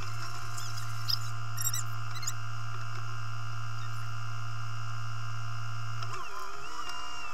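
JCB telehandler engine idling, heard from inside the cab as a steady drone with a thin whine over it and a few small squeaks and clicks in the first couple of seconds. About six seconds in, the drone drops away and the pitch shifts.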